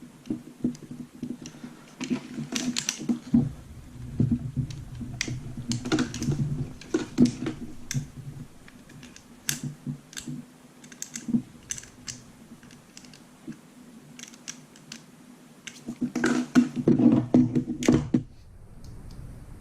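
Hands working on a gel blaster's metal gearbox and receiver parts: irregular light clicks and taps of metal and plastic, with a denser clatter about three-quarters through that stops abruptly.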